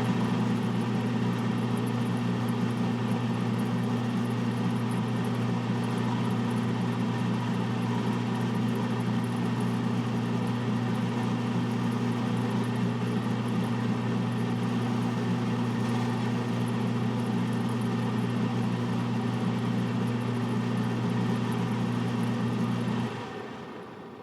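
Stove top exhaust fan running steadily with a low hum and airy rush, then dying away near the end.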